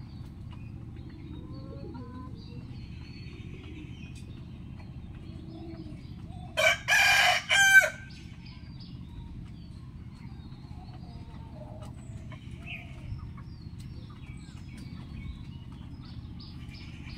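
A rooster crows once, about six and a half seconds in: a single loud cock-a-doodle-doo lasting about a second and a half, in a few linked phrases. A steady low background rumble and a few faint bird chirps run underneath.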